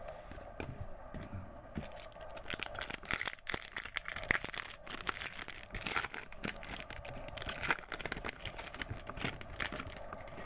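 Foil wrapper of a 2009-10 Panini Classics basketball card pack crinkling and tearing as it is opened by hand: a dense run of crackles from about two seconds in until near the end.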